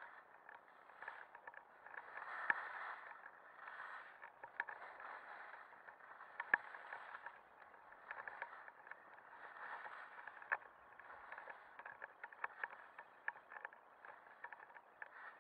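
Skis scraping and hissing over packed snow, swelling and fading with each turn every couple of seconds. Sharp clicks and knocks are scattered through it, the loudest about two and a half, six and a half and ten and a half seconds in.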